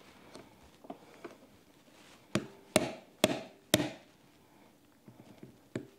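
A hammer tapping a plastic punch to drive a night sight sideways into a pistol slide's dovetail. A few light taps come first, then four sharp strikes about half a second apart from about two seconds in, then a few light taps near the end.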